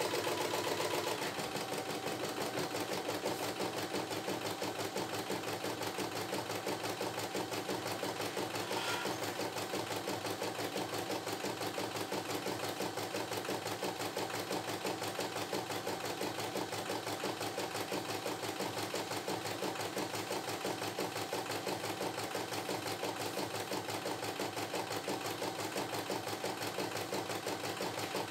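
CNY E960 computerized embroidery machine stitching out a design: the needle stitches rapidly in an even rhythm while the hoop carriage shifts the fabric. Its running note drops slightly about a second in.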